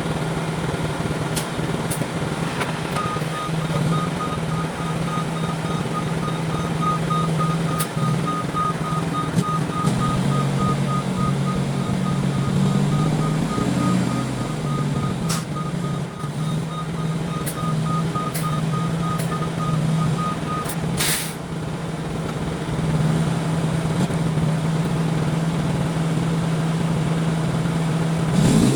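Concrete mixer truck's diesel engine running steadily, with a reversing alarm beeping in quick repeated pulses from a few seconds in until about two-thirds through, when it stops.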